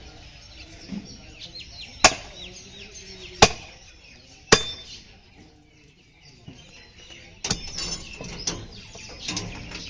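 A butcher's cleaver chops through beef into a wooden tree-stump block. There are sharp single chops, about one a second, three in the first half and another about three quarters in, followed by a couple of lighter knocks.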